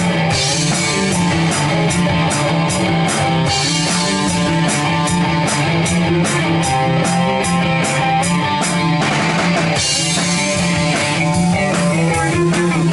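A rock band playing loud instrumental music: electric guitar and bass over a drum kit keeping a steady beat on cymbals.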